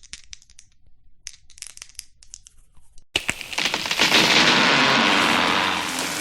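A sound effect: about three seconds of scattered sharp crackles and snaps, then a sudden loud, sustained noisy crash that swells and carries on.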